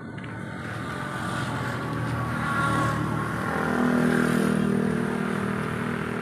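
A motor vehicle's engine running, growing louder to a peak about four seconds in and then easing off, as if it is passing by.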